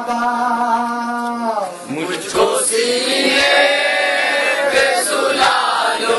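Men's voices singing a Shia noha lament in Urdu: a lead singer on a microphone holds a long note, and about two and a half seconds in a group of men takes up the refrain in chorus.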